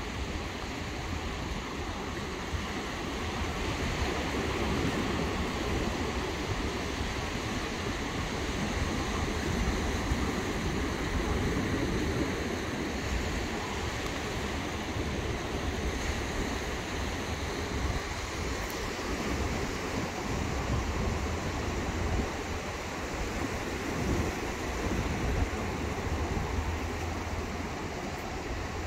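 Ocean surf washing on a beach, with wind buffeting the microphone as a low rumble; a steady noisy wash that swells and eases every few seconds.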